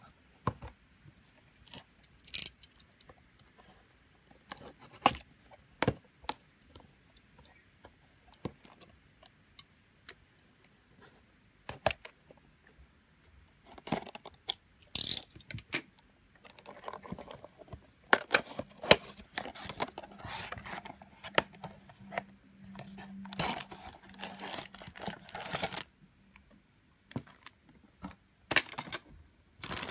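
A small cardboard figure box being handled and opened, with scattered taps and clicks, then from about halfway a long run of crinkling as a clear plastic bag holding a small figure is pulled out and handled.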